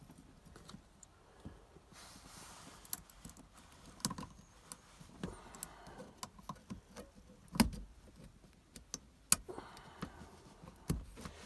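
Small metal parts of a B&M shifter clicking and clinking as a spring is worked into the shifter mechanism by hand, with scattered sharp clicks and a few louder knocks.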